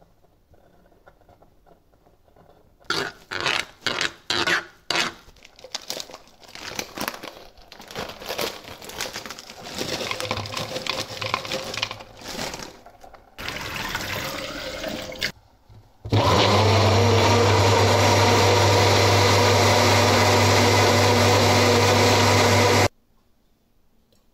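Frozen fruit and vegetables knocking and clattering as they are dropped into a plastic personal-blender cup, then a short stretch of liquid being poured in. A personal blender's motor then runs steadily for about seven seconds with a strong low hum as it blends a frozen-berry smoothie, and it cuts off suddenly.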